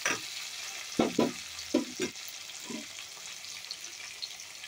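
Onion, tomato and green chillies sizzling in hot oil in a kadai, nearly fried through, with a spatula scraping and knocking against the pan about five or six times in the first three seconds.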